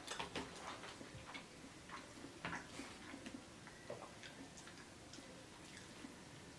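Faint, irregular small clicks and crackles of someone eating, more of them in the first three seconds and fewer after.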